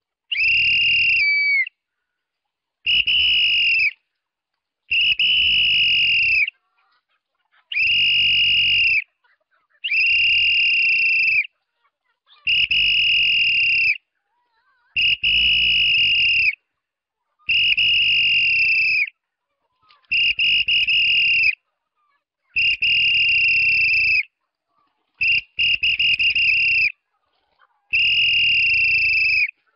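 A whistle blown in a string of about a dozen long, steady, high-pitched blasts, each about a second and a half, repeated every two and a half seconds or so. It is a call that gathers a flock of free-range chickens.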